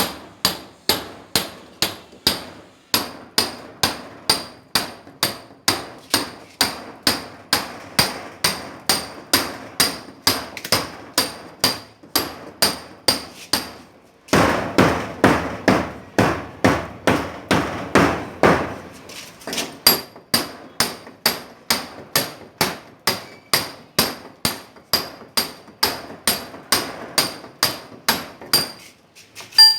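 Hammer striking a steel chisel on masonry, steady blows about two a second, each with a short metallic ring. From about 14 to 19 seconds in comes a louder stretch of rapid, close-packed strikes, then the steady blows resume and stop near the end.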